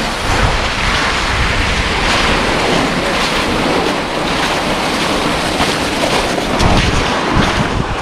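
Steady rushing hiss of wind on the microphone, mixed with the grainy crunch of footsteps through crusted snow on lake ice.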